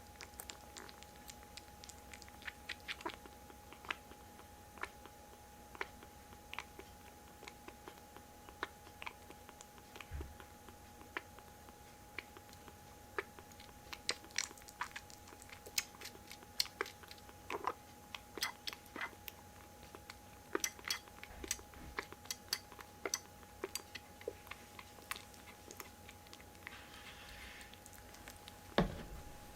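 Kittens chewing, a scatter of small irregular crunching clicks, over a faint steady hum. A single louder thump comes near the end.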